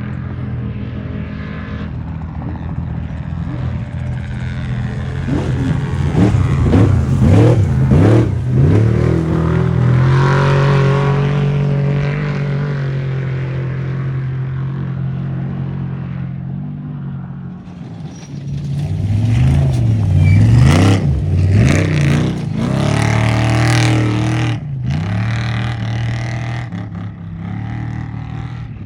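Off-road race vehicle engines running loud and revving, pitch sweeping up and down. The sound swells twice as vehicles pass close, about a quarter of the way in and again about two-thirds in.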